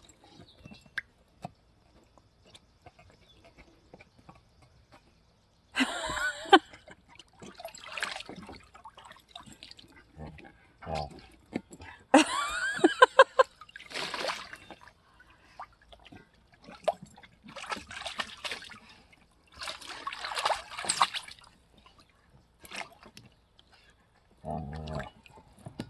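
A Jolly Ball squeezed in a swimming German Shepherd's jaws, giving off gurgling, honking noises in a series of separate bursts with pauses between, some of them pitched and rapidly pulsing, along with water sloshing.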